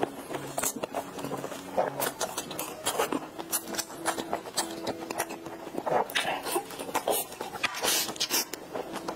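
Close-miked eating sounds: a fork scraping and tapping in a plastic container, and wet mouth sounds as soft durian crepe cake is chewed, over faint background music.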